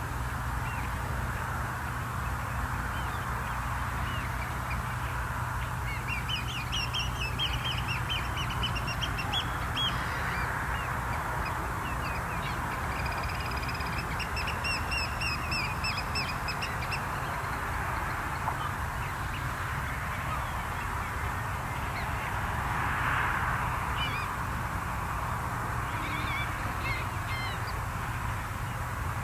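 Shorebirds calling in three bursts of quick, repeated high calls, each lasting a few seconds, over a steady background hiss.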